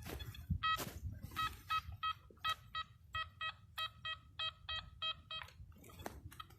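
Metal detector beeping over a buried target: a run of short identical electronic tones, about three a second, that stops about a second before the end.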